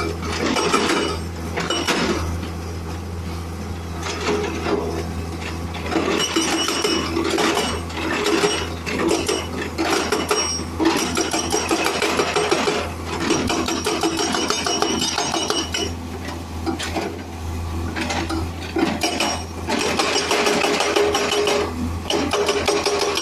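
Excavator-mounted hydraulic breaker hammering rock, a rapid metallic clatter of blows in bursts of a few seconds with short pauses, over the steady drone of the excavator's engine.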